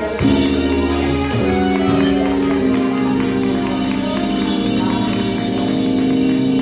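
Live gospel music in church: long held chords changing every second or two, with a light beat underneath.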